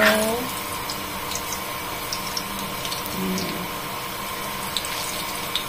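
Banana pieces sizzling steadily in hot oil in a metal wok, with small clicks and pops as metal tongs turn them.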